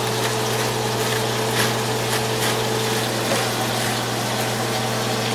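Hot frying oil sizzling steadily, with scattered faint crackles, over a steady low hum.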